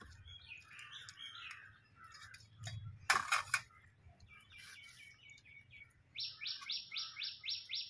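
Birds chirping. Near the end comes a rapid run of repeated sharp calls, about six a second. A few sharp clicks come about three seconds in.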